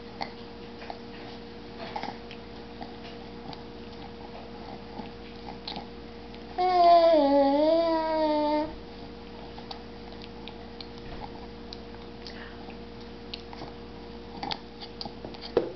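A baby gives one drawn-out vocal sound about seven seconds in, lasting about two seconds, its pitch dipping and rising again. Under it runs a steady electrical hum, with a few faint clicks and taps.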